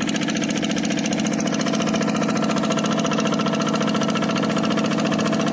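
Quick G1000 two-wheel hand tractor's single-cylinder diesel engine running steadily with a fast, even chugging.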